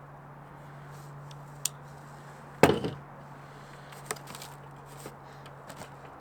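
A cardboard box being opened and handled: a few light taps and one loud knock about two and a half seconds in, over a steady low hum.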